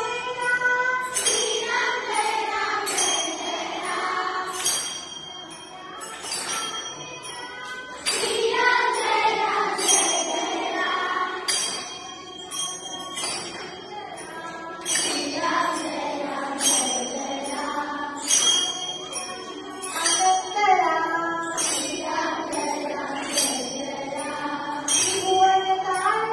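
Devotional song: voices singing a melody over a steady jingling percussion beat, about two strokes a second.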